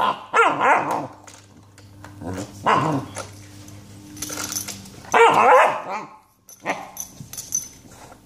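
American Brittany puppy barking and growling in play, in several bursts of about a second each, then a few shorter ones near the end.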